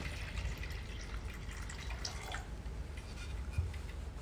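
Water trickling and dripping as the laser machine's water tank is filled through a cup in its inlet hole, over a low steady hum.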